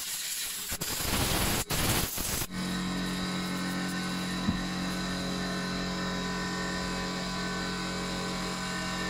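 A few short blasts of hissing compressed air, then about two and a half seconds in a steady motor hum starts and runs on evenly, with a single click a little after the middle.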